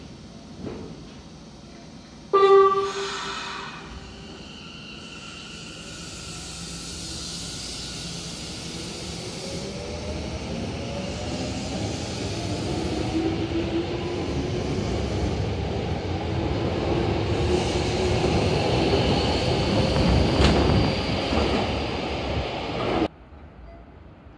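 Kyoto Municipal Subway 10 series electric train sounding a short horn blast, then pulling away from the platform. Its motor whine rises steadily in pitch as it accelerates, and the running noise of the wheels grows louder until it cuts off suddenly near the end.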